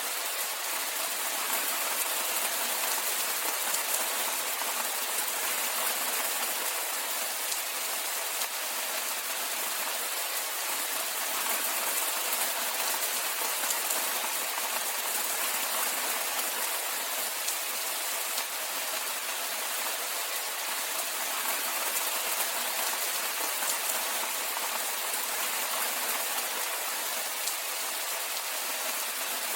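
Steady rainfall: an even hiss of many fine drops landing on surfaces.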